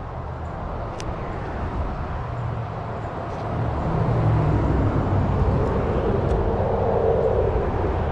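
A road vehicle passing, a low rumble with tyre noise that grows louder about halfway through and stays up near the end.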